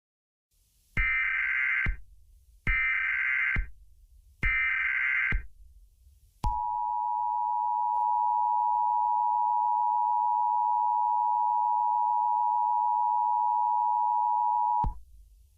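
Emergency Alert System header: three short bursts of warbling SAME data tones, then the two-tone EAS attention signal held steady for about eight seconds before cutting off sharply. It signals that an emergency alert message follows.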